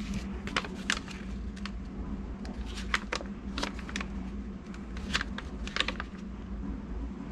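Paper rustling and crackling as a folded motor instruction leaflet is handled, making irregular crisp crackles over a steady low hum.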